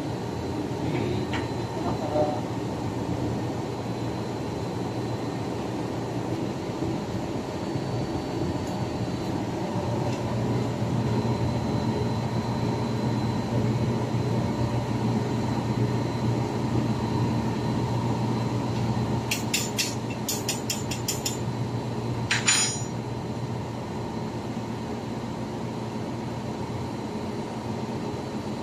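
Steady machinery drone with a constant hum, typical of a ship's engine-room workshop. About twenty seconds in comes a quick run of light metallic clicks, then one sharper metal knock, as the steel BBQ tripod is handled.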